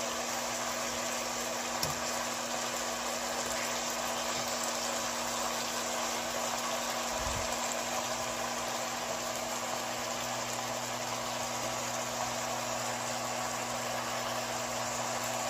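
Marinated pork tocino slices sizzling steadily in a hot nonstick frying pan, with a steady low hum underneath and a light tap or two near the start.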